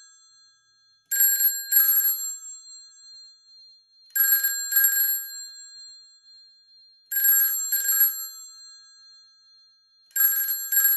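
500 series telephone's twin-gong bell ringer ringing in a double-ring cadence: four pairs of short rings about three seconds apart, each leaving a fading two-tone chime. One bell has just been shifted on its cam adjustment so the clapper now strikes both gongs properly, giving the dual tone.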